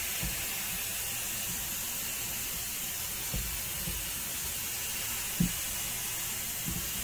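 McCulloch MC1375 steam cleaner's hand gun giving off a steady hiss of steam while the boiler is at very low pressure, with a few faint low bumps.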